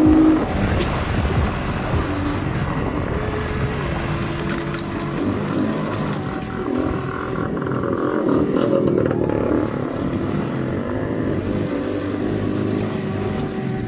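Keeway Cafe Racer 152 motorcycle engine running under way, its pitch shifting up and down in steps with the throttle, over steady wind and road rush.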